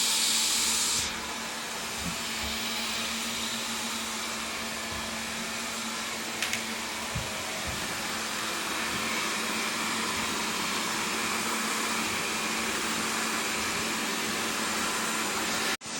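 Wyze robot vacuum running as it resumes cleaning: a steady whir with a low hum, louder and hissier for about the first second, then even, with a few faint knocks.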